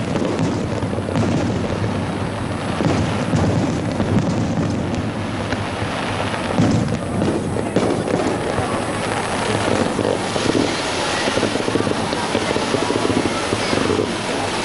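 Fireworks display with aerial shells bursting in repeated bangs and crackling.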